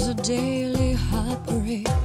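Background song: a singer holds and bends long notes over bass and drums.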